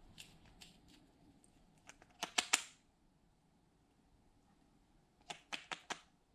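Sharp little glassy clicks and taps from a nail polish bottle and its brush cap knocking on glass as the bottle is opened and polish is brushed onto a glass baking dish. A few faint clicks at first, a quick cluster of loud clicks about two seconds in, and four more near the end.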